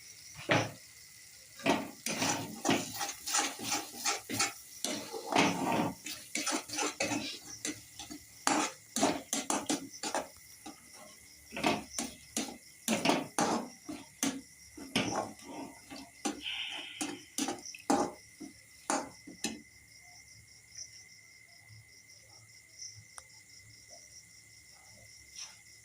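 A spoon scraping and knocking against a kadhai as a spice paste is stirred and roasted, in quick irregular strokes that thin out to a few faint ones about 20 seconds in.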